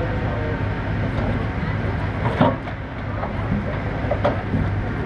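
Heavy equipment engine running steadily, with a couple of sharp knocks, about two and a half and four seconds in.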